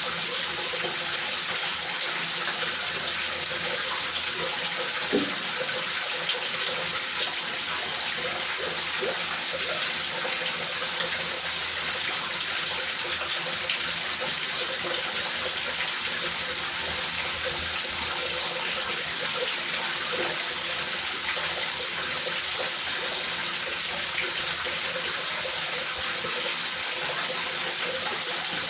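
Steady rain: an even, continuous hiss with faint scattered taps of individual drops.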